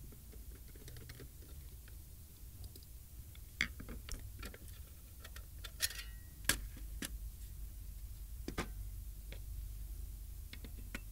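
Screws being backed out of a sheet-metal ATM mainboard casing with a Phillips screwdriver, then the casing cover lifted off and set down: scattered small clicks and ticks with a few sharper clacks about three and a half, six and eight and a half seconds in.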